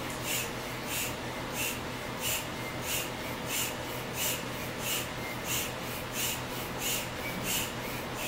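Handheld air pump squeezed over and over to inflate an exercise ball through a hose: a short hiss of air with each stroke, about one and a half strokes a second, evenly paced.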